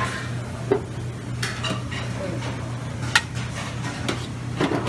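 Scattered clinks and knocks of metal serving utensils against stainless steel steam-table pans and lids, the sharpest clink about three seconds in, over a steady low hum.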